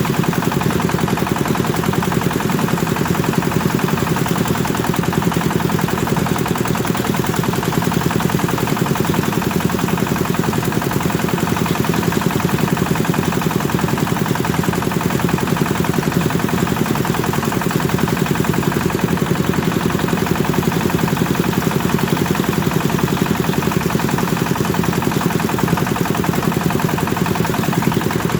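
Rice thresher driven by a Kubota diesel engine, running steadily with a rapid, even pulsing beat.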